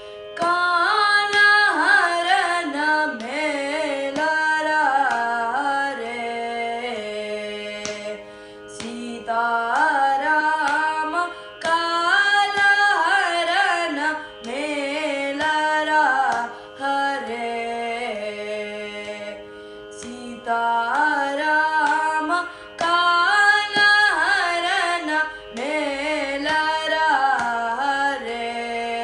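A boy singing Carnatic music, a kriti in raga Suddha Saveri, in gliding, ornamented phrases with short breaths between them, over a steady drone.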